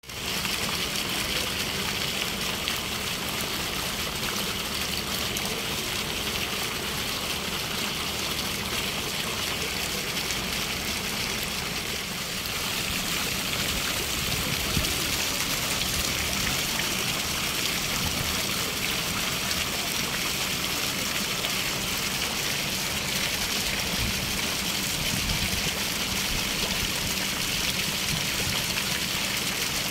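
Fountain water splashing steadily into its pool, a continuous rushing that grows slightly louder after about twelve seconds.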